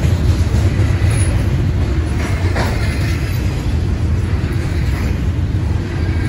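Double-stack intermodal freight train's well cars rolling past at close range: a steady, deep rumble of steel wheels on the rails.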